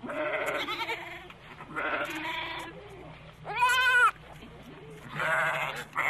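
Goat bleating four times in a row, each call about half a second to a second long; the third call is the loudest and clearest.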